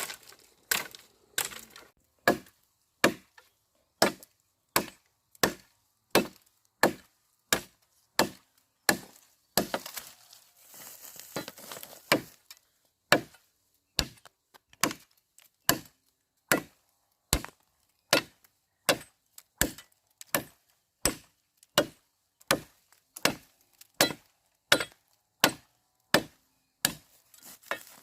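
Steady rhythmic chopping into wood, sharp strikes at about three every two seconds. A few seconds of rustling about ten seconds in.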